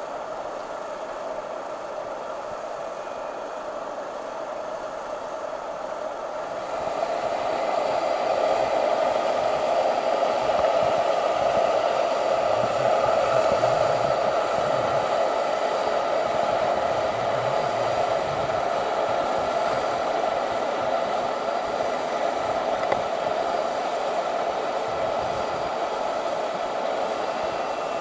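Whitewater rapids rushing, a steady roar of churning water that grows louder about seven seconds in.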